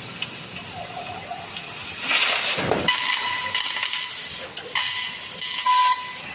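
6 kW CNC laser cutting machine running a cut: a steady gas hiss from the cutting head, with a thin steady whine under it. The hiss swells louder about two seconds in and again from about three and a half seconds on.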